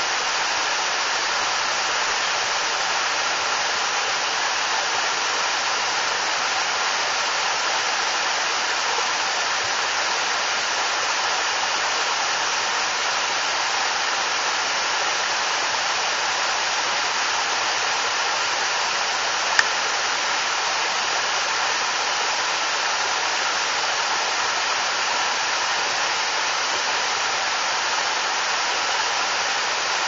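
Small waterfall splashing down a rock face into a pool: steady rushing water. One brief sharp click about two-thirds of the way through.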